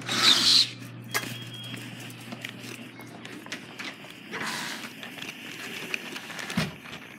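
Footsteps and scattered taps and clicks of a person walking dogs out of a door onto a concrete step, with a loud rustle of handling noise about half a second in. A steady low hum stops about four seconds in.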